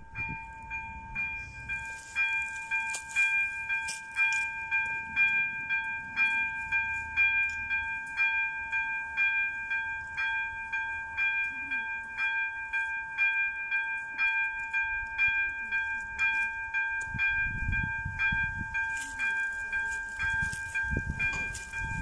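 Czech level-crossing electronic warning bell ringing in an even, repeating ding about twice a second. A low rumble builds under it near the end.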